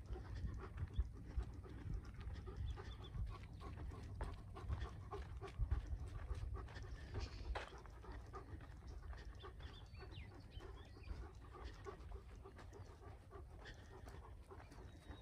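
A dog panting as it runs close ahead, over irregular footfalls and a low rumble from walking with the microphone. It is louder through the first half and eases off later.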